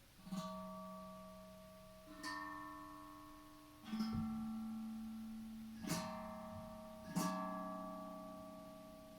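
Tank drum (steel tongue drum) struck five times, about two seconds apart. Each note rings on with a slow fade, so the notes overlap.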